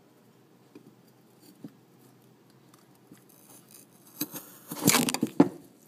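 A knife working coconut meat loose inside a halved coconut shell: a few faint clicks, then about four seconds in a loud burst of scraping and knocking.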